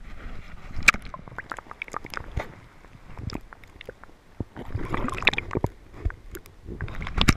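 Lake water splashing and gurgling as a hand holds a largemouth bass in the water to release it, heard muffled with the camera partly underwater. Irregular knocks and sloshes throughout, with a busier bout of splashing about five seconds in.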